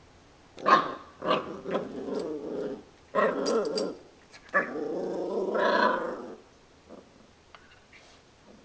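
Puppy growling in play while mouthing a toy, in three rough spells over about six seconds, the first starting with a sharp, loud onset.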